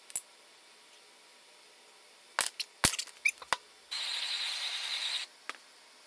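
Sharp clicks and knocks of metal pieces and tools handled on a workbench, several in quick succession halfway through. They are followed by a steady hiss of just over a second that starts and stops abruptly.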